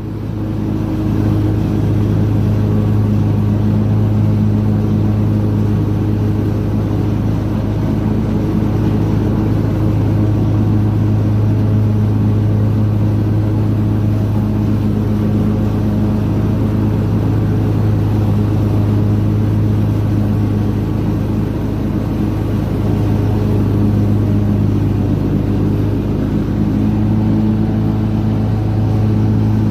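Lawn mower engine running at a steady speed under load, a constant loud hum.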